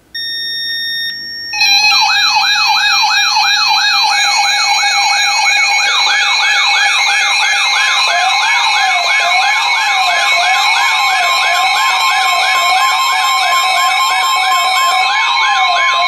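Several NOAA weather radios sound their alert alarms at once for an incoming marine warning. A brief steady beep comes first. About a second and a half in, overlapping warbling siren-like tones start, and a steady tone and a slower up-and-down wail join about halfway through.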